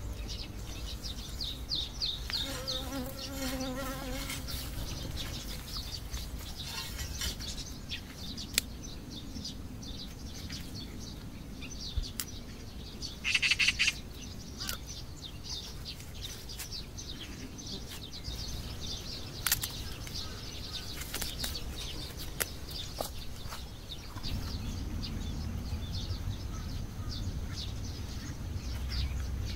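Summer garden ambience: small birds chirping and insects buzzing. Over it come rustling of dry garlic stalks being handled, a loud rustle about halfway through, and a few sharp snips of pruning shears cutting the stems.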